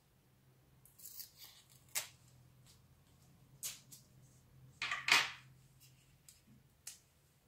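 Thin plastic backing film being peeled off a thermal pad and handled by gloved hands: a run of short crinkles and rustles with a few sharp clicks, the loudest crinkle about five seconds in.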